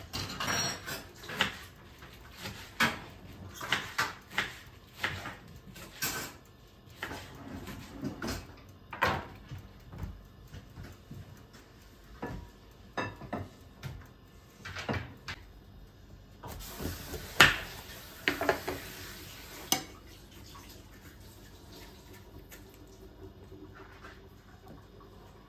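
Kitchen clatter: dishes, pans and utensils knocked and set down in a string of irregular sharp clicks and clanks, with a steady hiss for about three seconds past the middle.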